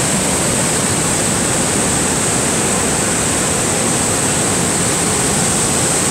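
Niagara Falls heard close up from its base: a loud, steady rush of falling water with no break or change.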